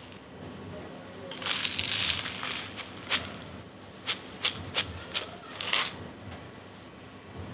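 Slate pencil powder poured from a plastic jar into a fluted glass bowl: a soft grainy hiss of the pour, then half a dozen sharp clicks and clinks against the glass.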